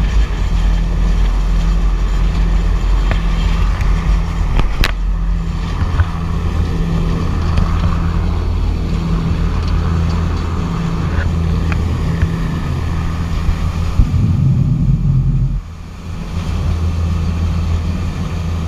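Fast passenger ferry running at speed: a steady, loud engine drone with water rushing in the churning wake alongside. A single sharp click about five seconds in, and the sound briefly drops in loudness about three-quarters of the way through.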